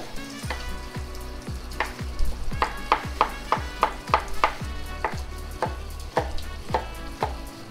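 Chef's knife dicing an onion on a wooden cutting board: a run of quick chops, about three a second, loudest from about two seconds in, over background music with a bass beat.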